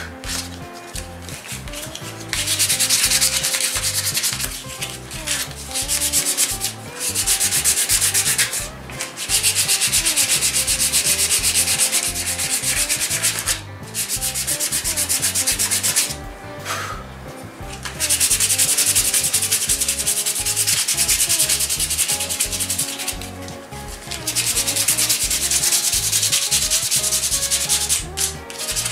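Walnut slingshot frame being hand-sanded with fine sandpaper: rapid back-and-forth rasping strokes in long runs, broken by several short pauses.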